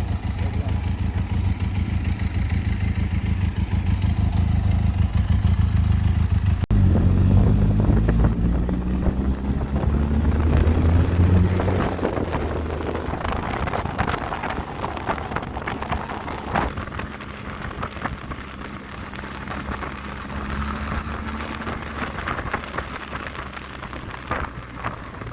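Benelli TRK 502X parallel-twin engine running steadily. About seven seconds in, its revs climb for a few seconds as it pulls away. Then the sound gives way to riding noise, with wind and road rush over the engine.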